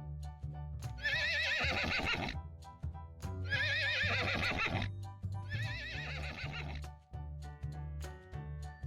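A horse whinnies three times, each call about a second and a half long and quavering, over light background music.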